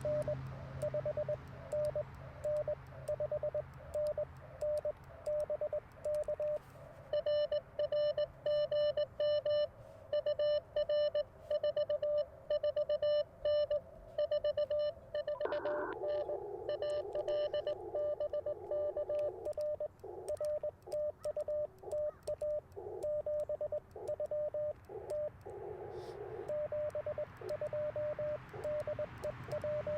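Morse code (CW) from an Icom IC-705 ham radio transceiver: a single steady beep keyed rapidly on and off in dots and dashes. In the middle a second, buzzier signal joins for about ten seconds.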